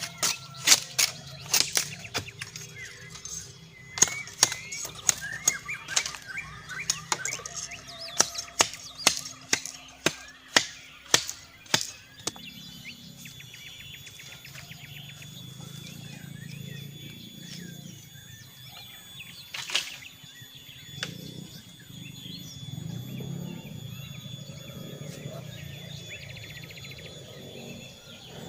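A run of sharp knocks, about one to two a second, for the first twelve seconds, with bird chirps among them. After that a steady high tone holds, and a single knock comes about twenty seconds in.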